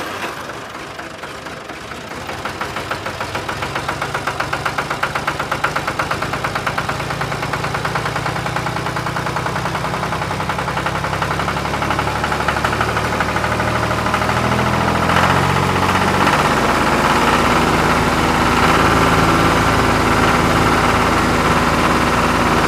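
Tractor diesel engine running with a fast, even knock, building in loudness over the first few seconds and then holding steady.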